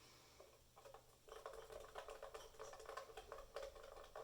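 Acrylic paint being stirred in a cup to mix in silicone: faint, quick ticks and scrapes, starting about a second in.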